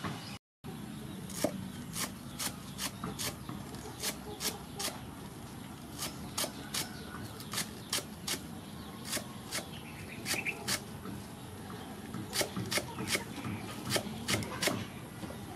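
Cleaver chopping green onions on a wooden chopping block: a run of sharp knocks, about two to three a second.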